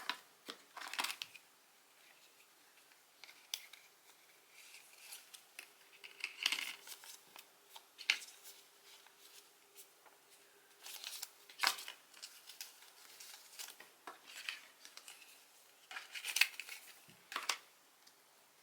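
Irregular crinkling, tearing and sharp clicks of iPhone 12 Pro packaging being handled and opened: paper and plastic wrapping and the box's parts.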